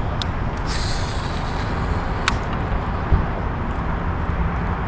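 Steady low rumble of wind buffeting the microphone, with a sharp click about two seconds in.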